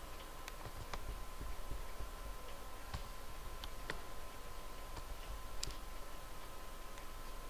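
Computer mouse clicking: a handful of sharp, scattered clicks a second or more apart, over a steady faint hum with a thin high tone.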